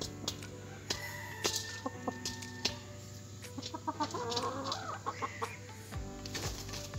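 Aseel chickens clucking, with a short wavering call about four seconds in and scattered sharp clicks.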